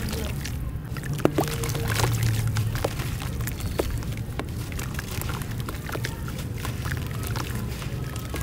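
Soft, dry cement-sand chunks crumbling in the hands, their grit and dust pouring down into water in a plastic tub. It comes through as a dense run of small crackles and ticks over a steady pouring hiss.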